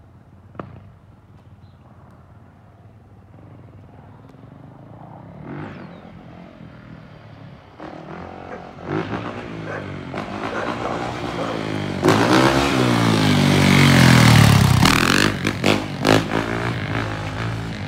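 2019 Yamaha YZ450F dirt bike's single-cylinder four-stroke engine approaching in a wheelie, faint at first and growing louder as the throttle is worked up and down. It passes close about fourteen seconds in, at its loudest, with the pitch dropping as it goes by, then a few short blips as it moves away.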